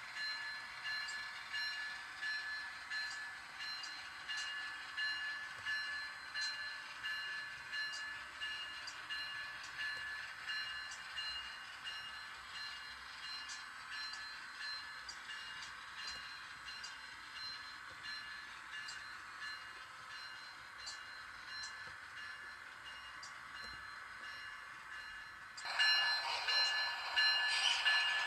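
Model passenger train running on layout track: a steady high motor whine with light clicks of the wheels over the rail joints. Near the end a louder sound suddenly cuts in.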